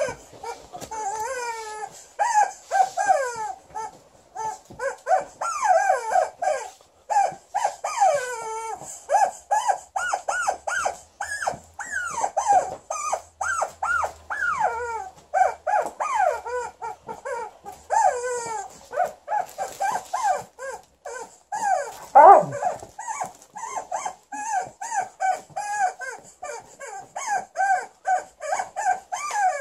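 Rubber chicken dog toy squawking over and over as an Alaskan Malamute bites and chews it: short squeals, about one or two a second, that bend up and down in pitch, with one louder squawk past the middle.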